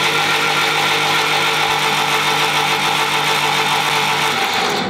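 Starter motor cranking the 1946 Willys CJ2A Jeep's Go-Devil four-cylinder flathead engine with the spark plugs out. It makes a steady, even whir with no compression pulses and stops just before the end. The engine is being spun over to build oil pressure and prime a new fuel pump.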